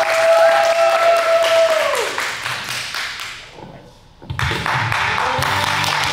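Audience clapping and cheering, with one long held 'woo' that falls off about two seconds in, the applause then fading to a brief hush. About four seconds in, backing music cuts in suddenly under more clapping and cheering.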